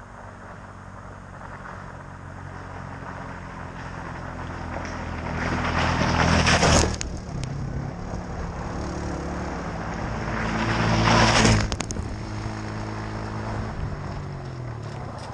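Motor vehicle engines on a gravel track making two close passes, one about seven seconds in and another about eleven and a half seconds in. Each pass rises to a loud peak and drops off suddenly as it goes by, with flung gravel spraying.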